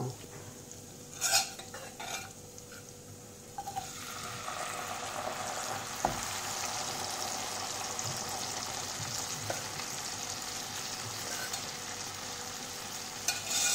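Boiled horse gram dal added to a hot mustard-oil tempering in a wok, sizzling steadily from about four seconds in as it is stirred with a steel ladle. Two light clinks of metal on the pan come in the first seconds.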